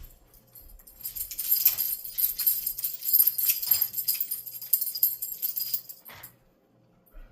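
Small metal pieces jingling and rattling in a quick, jangly run for about five seconds, starting about a second in and stopping near the end.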